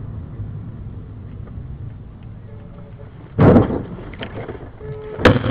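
Steady low rumble of a vehicle driving, broken by two loud, sudden thumps, one about three and a half seconds in and one near the end.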